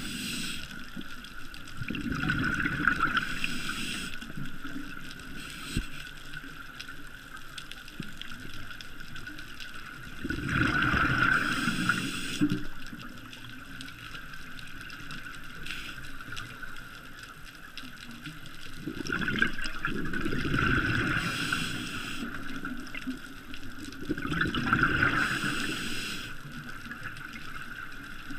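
A scuba diver's breathing heard underwater: four bouts of exhaled bubbles gurgling past the camera, each a second or two long and several seconds apart, with a steady underwater hiss between them.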